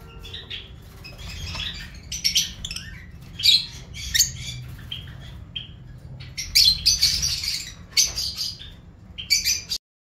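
Peach-faced lovebirds chirping and squawking in short, repeated high-pitched bursts over a low, steady hum. The sound cuts off suddenly just before the end.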